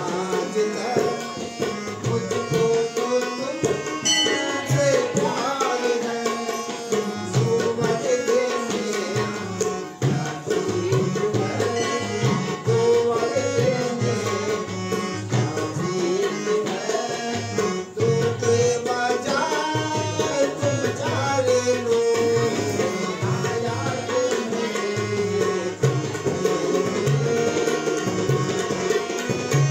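Harmonium and tabla playing live: held harmonium chords over a steady tabla rhythm, with a voice singing a wavering melody over them.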